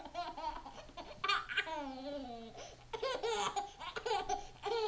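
A baby laughing in several bursts of belly laughter, one long laugh about a second in falling in pitch.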